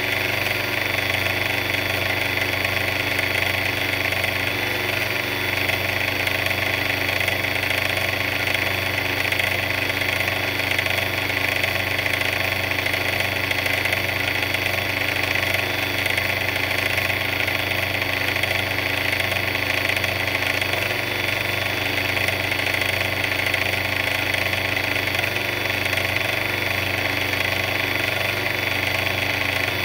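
Big yellow mixer's motor running at a steady, unchanging pace, an even engine-like drone.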